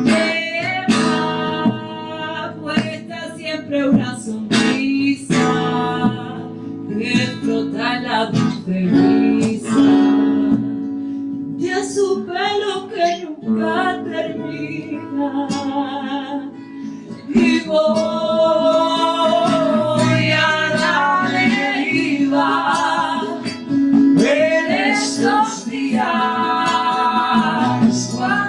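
Acoustic guitar playing with a singing voice holding long wavering notes: a live song performance.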